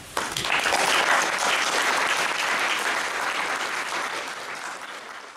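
Audience applauding at the end of a talk, breaking out just after the start and slowly dying away toward the end.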